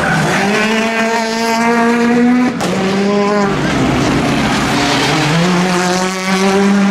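Rally car engines held at high revs through a tight corner, with a steady, loud note. The note breaks off with a sharp click about two and a half seconds in, drops, then climbs again about five seconds in.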